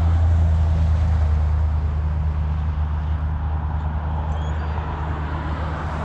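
Steady low hum of a motor vehicle's engine over a wash of road-traffic noise, easing off slightly toward the end.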